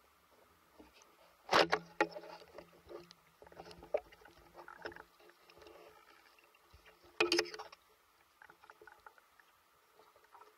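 Water sloshing and splashing against an underwater camera as a spearfisher swims near the surface, heard muffled with scattered small knocks. Two louder sharp splashes come about a second and a half in and again about seven seconds in.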